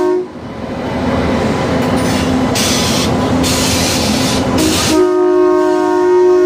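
Indian Railways train at a station: a brief horn note at the start, then rumbling running noise with a few short bursts of hiss. About five seconds in, a long steady multi-tone horn blast sounds.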